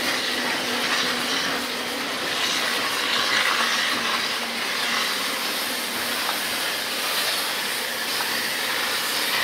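ČSD steam tank locomotive 354.1217 hissing steam steadily while it stands on a turning depot turntable.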